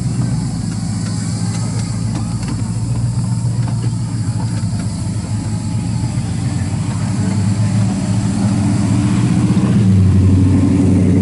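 A car engine idling steadily, growing louder near the end.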